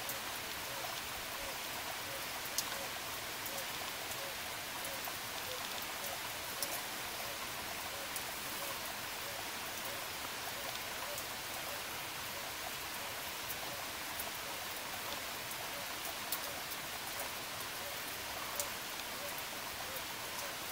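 Steady rain, with now and then a sharp drip striking close by.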